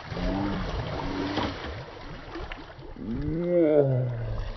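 Men's wordless exclamations, three drawn-out calls that rise and fall in pitch, the longest and loudest near the end, over a steady wash of water and wind noise.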